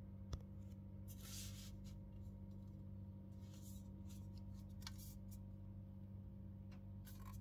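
Aluminium beer can being handled and turned in the hand: a sharp click, then several short scratchy rustles of fingers sliding over the can, over a steady low hum.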